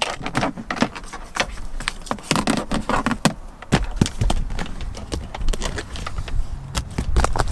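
Irregular clicks, taps and knocks of a hand rummaging in a car's centre console and between leather seats, pulling on a charging cable and picking up a phone.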